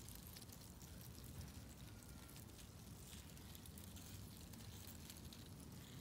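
Faint, dense crackling and ticking of dry leaf litter as many emerging 17-year periodical cicada nymphs crawl over it.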